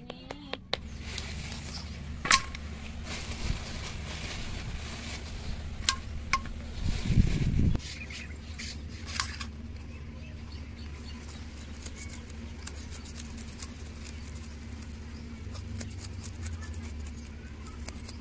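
Knife scraping scales off a raw fish: a run of fine, quick scratchy ticks through the second half. Under it runs a steady low hum, and the first half has a few scattered clicks and a brief low rumble.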